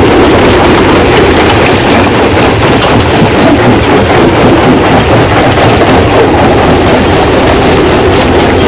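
Rock crushing machine running: a steady, loud rumble with rock clattering through it.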